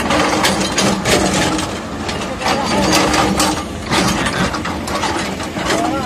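Excavator-mounted hydraulic breaker hammering rock in rapid, uneven metallic blows, over the steady hum of the excavator's engine.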